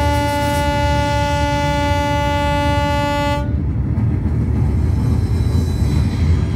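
A ship's horn sounds one long, steady blast that cuts off about three and a half seconds in, over a continuous low rumble.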